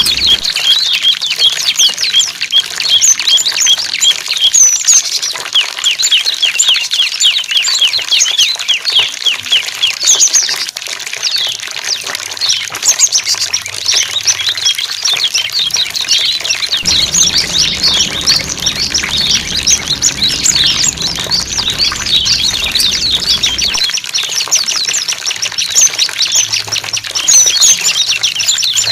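Small songbirds chirping continuously in a dense run of quick, high, sweeping chirps, played to coax silent cage birds into song.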